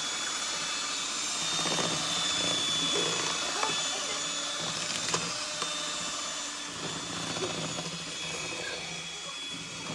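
Electric hand mixer running steadily, its beaters whisking a butter, sugar and egg batter in a glass bowl, with a thin high whine and a few light clicks.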